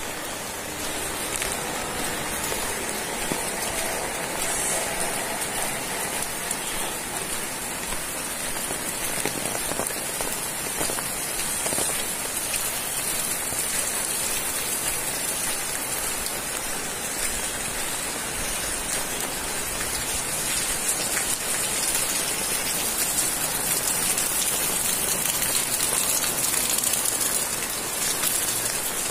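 Heavy rain falling steadily on a wet, water-covered paved street, a continuous hiss of drops splashing, growing a little louder in the second half.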